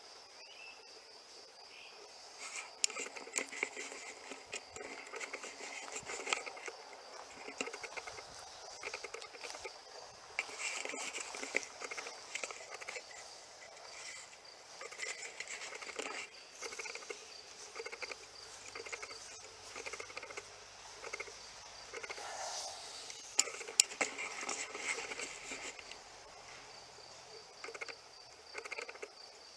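Insects trilling steadily in a high, even tone, with scattered rustling and crackling clicks over it.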